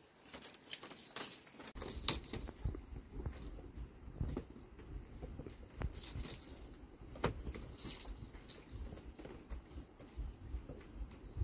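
Faint clicks, knocks and rustling from a toddler crawling on a bamboo-slat floor and woven mat, with a low rumble starting about two seconds in and short high chirps now and then.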